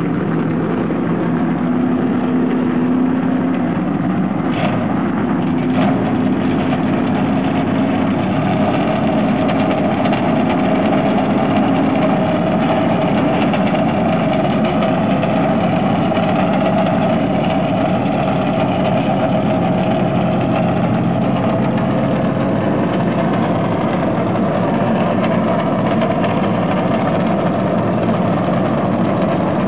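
NASCAR Cup car's pushrod V8 idling loudly and steadily with a deep rumble.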